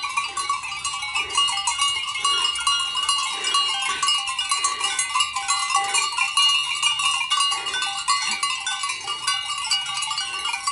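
Many sheep bells ringing and clanking together without a break as a flock of Alpine sheep grazes and moves along.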